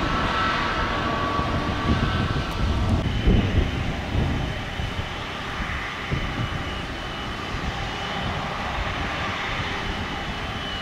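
Airliner engines heard passing: a steady rushing noise with a thin high whine that comes in about three seconds in and holds, the whole sound easing off slightly after the first few seconds.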